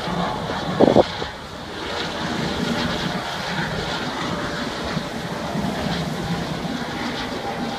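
Eurocopter EC155 helicopter flying by over open water, its rotor and turbine sound blended with the steady drone of a ferry's engine and wind on the microphone. A brief thump comes about a second in.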